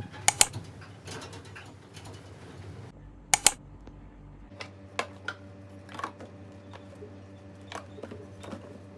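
Scattered sharp clicks and taps, with two loud double clicks, one near the start and one about three seconds in, over a low steady hum.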